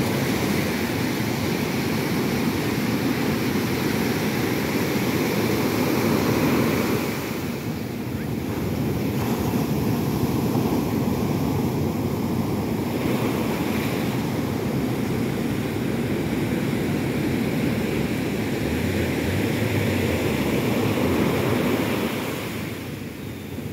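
Ocean surf breaking and washing up a sandy beach in a steady rush, with wind buffeting the microphone. It eases briefly about a third of the way in and again near the end.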